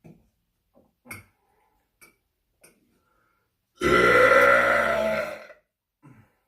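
A person lets out one long, loud burp of nearly two seconds, about four seconds in, after a few faint clicks.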